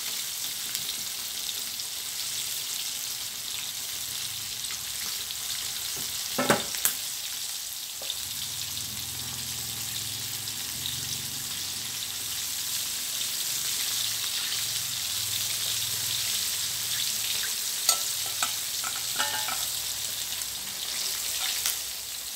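Flour-coated chicken wings deep-frying in hot oil in a steel wok: a steady sizzle throughout, with a few sharp clicks about six to seven seconds in and again near eighteen seconds.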